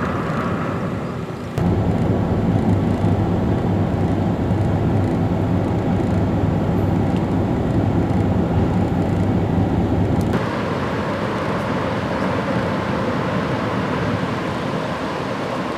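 Steady low engine rumble and hum of a car ferry, heard from inside its enclosed vehicle deck. It cuts abruptly about ten seconds in to a hissier, fuller rumble of the ferry at its loading ramp.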